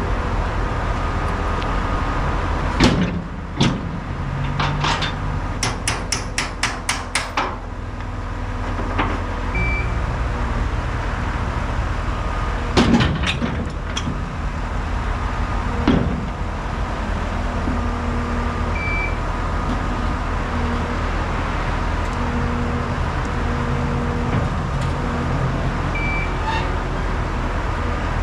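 Engine running steadily, with a scattering of sharp metal clanks and knocks, the loudest about 3 and 13 seconds in, and a quick run of about ten clicks a few seconds in, as a skid steer with grapple forks is loaded and secured on a truck.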